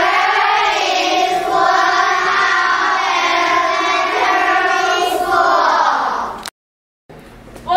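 A group of children's voices chanting together in one long drawn-out phrase, cutting off abruptly about six and a half seconds in; after a short silence, loud children's voices start again at the very end.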